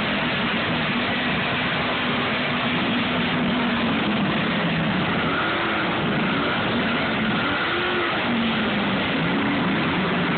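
Pickup truck engine running, revved several times so its pitch rises and falls, over a steady rushing noise.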